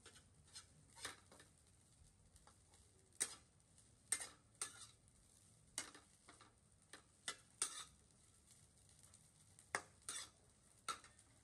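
Metal spatula scraping and clinking against a stainless steel pan as fried rice is stirred and turned, in irregular strokes about a dozen times.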